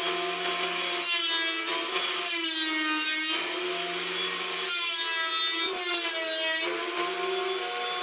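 Craftsman CMEW320 15-amp benchtop planer running with a steady whine as a walnut post is fed through. The pitch of the whine shifts a few times as the cutter takes the wood.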